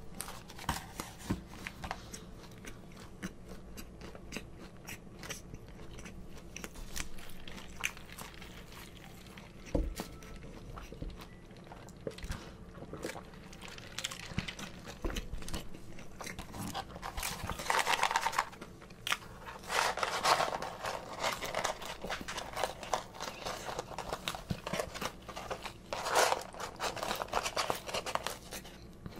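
Close-miked chewing of fried fast food, mainly French fries: wet mouth sounds and many small crunches and clicks, with several louder, noisier stretches about halfway through and near the end.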